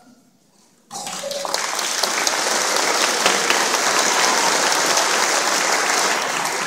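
Audience applause: after a brief lull, clapping breaks out about a second in, swells quickly and goes on as a steady, dense patter of many hands.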